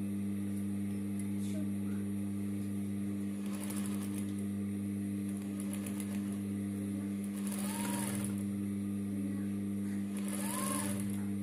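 GEMSY industrial sewing machine running, its motor giving a steady hum, with two short bursts of faster stitching about eight and ten and a half seconds in.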